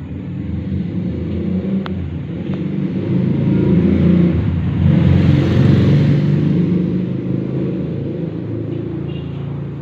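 A motor vehicle's engine rumbling as it passes, swelling to its loudest about halfway through and then fading.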